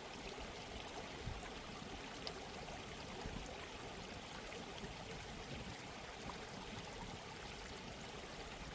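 Soft, steady running water, like a gently flowing stream, with small trickling flickers.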